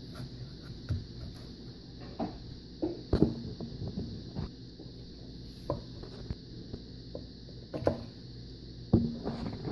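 A chef's knife cutting through an apple and knocking on a wooden cutting board, in a series of irregular knocks.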